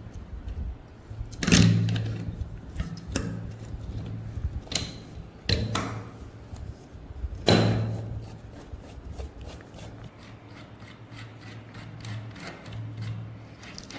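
Metal parts of a rusted MP5 being handled and knocked together on a workbench: four sharp clanks with a brief metallic ring in the first half, between lighter clicks and rubbing.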